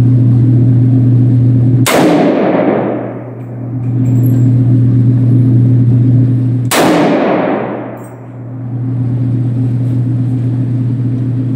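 Two single shots from a CSA Vz 58 Sporter semi-automatic rifle, about five seconds apart, each echoing briefly off the walls of an indoor range. A steady low hum runs underneath.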